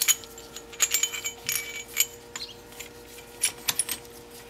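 Light metallic clinks and taps of a brake caliper piston retraction tool and its adapter being handled and fitted against a rear caliper piston, coming in short clusters of sharp ticks, with a faint steady hum underneath.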